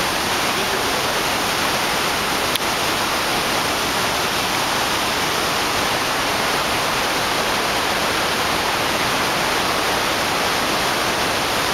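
Waterfall, a loud, steady rush of falling water.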